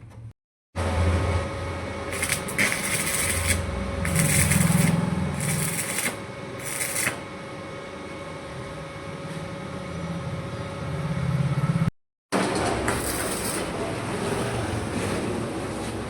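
Electric welding: a steady machine hum with bursts of high crackling hiss that come and go, broken by two brief dropouts to silence.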